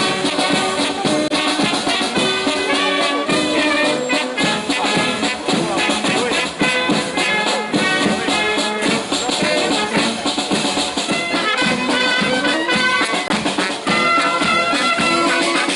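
Military brass band playing while it marches: tubas, trumpets and saxophones over a bass drum.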